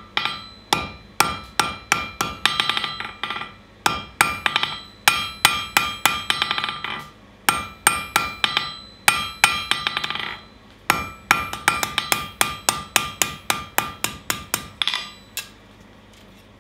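Hand hammer forging red-hot steel on an anvil: runs of sharp blows, each ringing from the anvil, in several bursts of about two to three strikes a second with short pauses between. The strikes stop shortly before the end.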